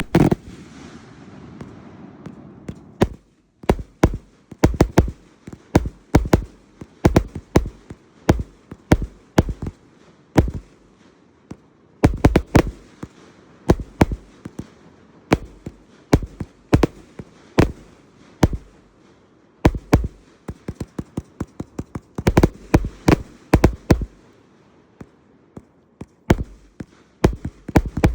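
A 293-shot consumer firework cake firing, a fast irregular string of sharp reports in clusters. The shots begin about three seconds in.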